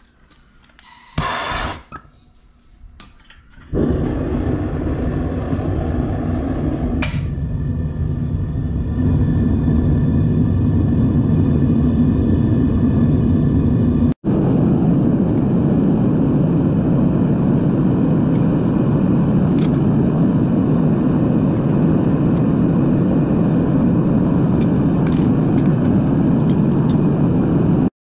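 Propane burner of a Devil Forge melting furnace: after a short hiss about a second in, the burner comes on suddenly near four seconds and runs with a steady, even rushing noise, growing louder around nine seconds as it heats the crucible.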